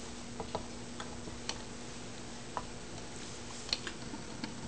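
Light, irregular metal clicks and taps from the kickstart shaft's bushing and gear being turned and seated by hand in a bare Kawasaki H2 750 crankcase half, over a faint steady hum.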